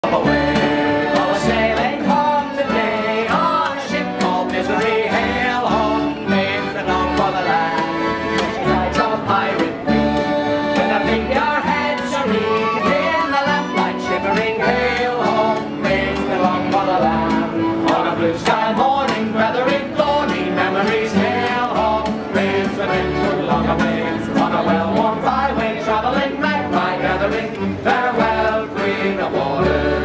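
Acoustic street band playing an upbeat folk tune live: accordion, plucked upright bass and acoustic guitar, with a flute joining in, over a steady bass pulse.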